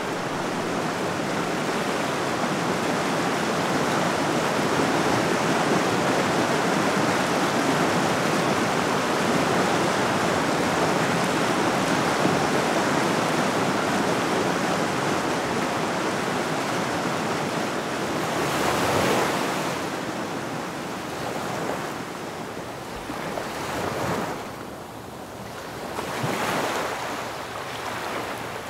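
Ocean surf: a steady rush of breaking waves, then separate waves swelling and washing back every few seconds over the last ten seconds.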